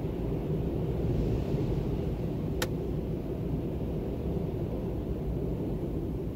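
Storm-force wind blowing as a steady low rumble, swelling slightly about a second in. A single sharp click cuts through it about two and a half seconds in.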